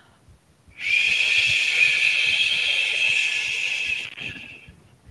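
A woman's long exhaled "shhh", the qigong "xu" healing sound for the liver. It starts about a second in, runs for about four seconds and fades out near the end.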